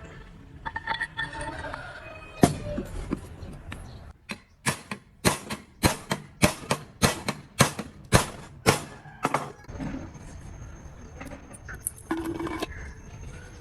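Metal parts and tools clinking and knocking: a quick run of about a dozen sharp taps through the middle, with some brief metallic ringing before and after.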